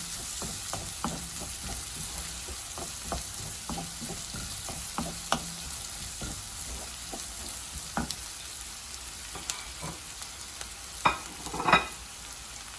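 Chopped onions, ginger, garlic, chillies and curry leaves sizzling in hot oil in a pan as they are stirred, with frequent light taps and scrapes against the pan and a few louder knocks near the end.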